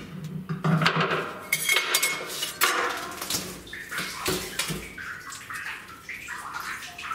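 Narrowboat water tank's inspection hatch lid being levered and lifted free of the black rubbery sealant holding it down: a busy run of scraping, creaking and sharp knocks as the board pulls away from the tank rim, with a short squeak early on.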